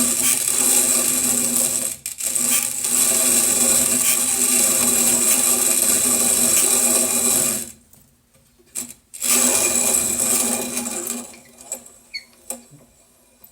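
Rok manual coffee grinder being hand-cranked through the last of the beans, grinding with a squeak from the mechanism at the top that comes on near the end of the grind; the owner traces it to the dry mechanism, which a little olive oil cures. The cranking breaks off briefly about two seconds in, stops for about a second and a half around the middle, resumes, then dies away, leaving a few light clicks.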